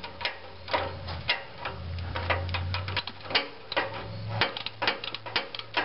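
Socket ratchet clicking as it runs an exhaust manifold flange nut down onto its stud, about two irregular clicks a second.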